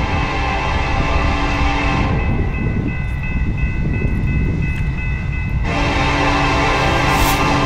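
Union Pacific freight locomotive horn sounding two long blasts for a grade crossing: the first cuts off about 2 seconds in and the second starts a few seconds later and holds to the end. In the gap the crossing's electronic warning bells ring steadily, over the low rumble of the approaching train.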